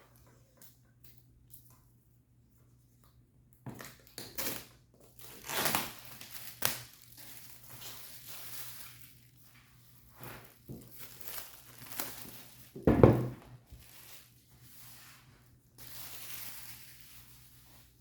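Laptop box packaging being opened: paper and cardboard crinkling and tearing in irregular bursts with small clicks, and one louder thump about two-thirds of the way through.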